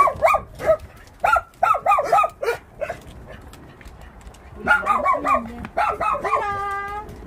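Several dogs barking in quick runs of short, high barks. One run comes at the start, another about a second in, and a third near the end, followed by a long drawn-out held note.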